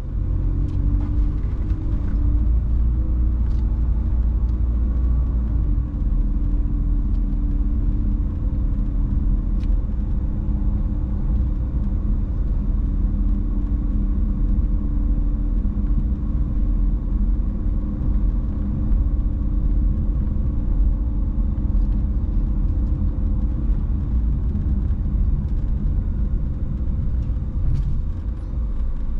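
A car driving at low city speed: a steady low rumble of engine and tyre noise.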